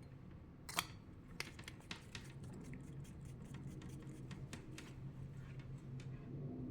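Faint clicks and light ticks of a hardened fiber-optic connector and its cable being handled, with one sharper click about a second in, over a low steady hum.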